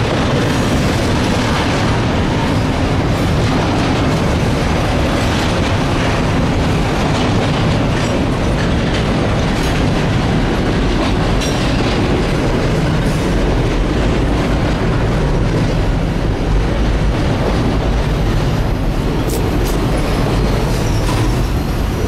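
Intermodal freight train of double-stacked container well cars rolling past close by: a steady, loud rumble of wheels on rail with occasional sharp clicks.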